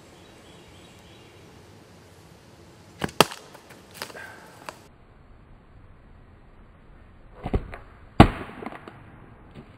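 A wooden bow shooting a green cane arrow twice: each shot is a sharp snap of the bowstring and the arrow striking the target, about 3 seconds in and again near 8 seconds. The second shot is the louder.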